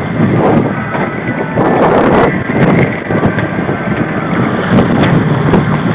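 Boat engine running steadily, with wind buffeting the microphone in gusts.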